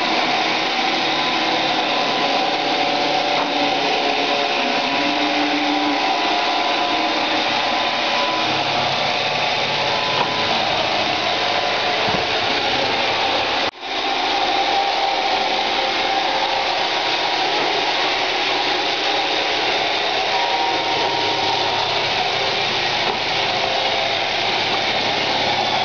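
iRobot Roomba 580 robot vacuum running, a steady whir of its vacuum and brush motors with several steady tones, briefly cutting out about halfway through.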